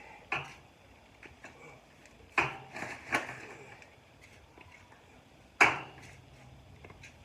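A few sharp knocks with smaller clicks between, the loudest about two and a half seconds in and again near six seconds: handling and knocking while potatoes are dug by hand from a raised garden bed.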